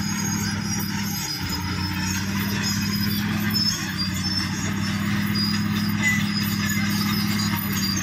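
Caterpillar D6R bulldozer's diesel engine running steadily, with a brief waver in its pitch about a second and a half in.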